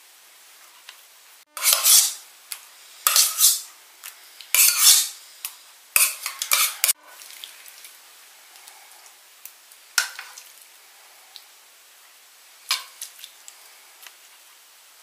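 A spoon scraping and clinking against a frying pan and dishes: four loud scraping bursts in the first seven seconds, then a few lighter clinks.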